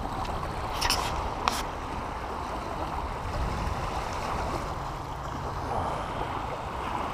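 Shallow river water lapping and trickling over a flat rock shelf in a steady wash, with two brief sharp sounds about a second in.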